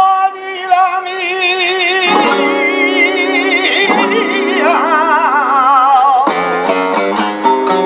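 Male flamenco singer singing fandangos in long ornamented phrases with a wide wavering vibrato, over flamenco guitar accompaniment. A few sharp accents sound near the end.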